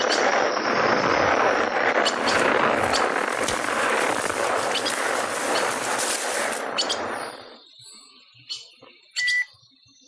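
Cartoon sound effect for a tree shooting up in fast motion: a loud, steady rushing hiss with scattered sharp crackles that cuts off about seven and a half seconds in. A few short bird chirps follow near the end.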